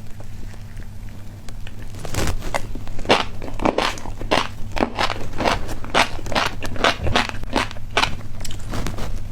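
A person chewing a crunchy snack, with a regular run of sharp crunches about two to three a second starting about two seconds in.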